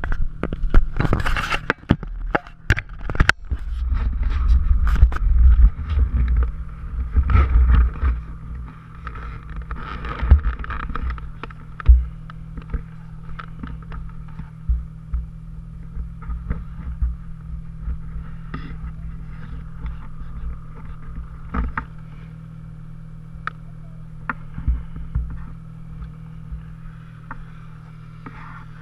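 Snowmobile engine running at a steady drone while riding over rutted snow, with many short knocks and jolts from the bumps. Heavy low rumbling between about four and eight seconds in, then steadier and quieter riding.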